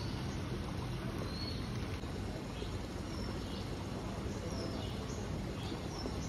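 Outdoor ambience: a steady background hiss with a few short, high bird chirps now and then.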